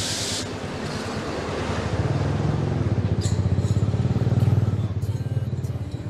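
Motorcycle engine running as the bike rides along, its pulsing note growing louder about two seconds in and easing off near the end. A brief hiss sounds at the very start.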